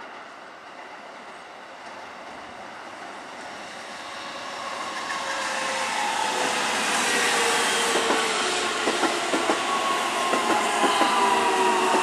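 A Keihan electric commuter train passes close by, its sound growing over the first several seconds. Its wheels clack over rail joints, and a motor whine falls slowly in pitch as the train slows.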